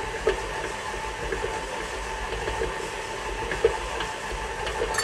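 KitchenAid stand mixer running steadily on low speed, its beater turning thick, still-crumbly royal icing in a stainless steel bowl, with a steady hum and a few faint ticks.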